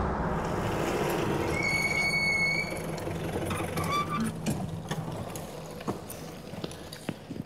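Open-top jeep's engine running as it pulls up and slowly fading, with a short high-pitched tone about two seconds in and a few clicks and knocks in the last seconds.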